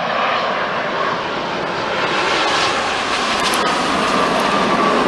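Boeing 787-10 Dreamliner's jet engines on landing approach, passing low overhead: a steady rushing noise that grows a little louder, with a whine that drops slightly in pitch near the end.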